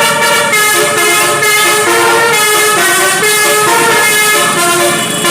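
Telolet horn on a Basuri bus: a set of multi-tone air horns playing a continuous melody, changing note two or three times a second without a break.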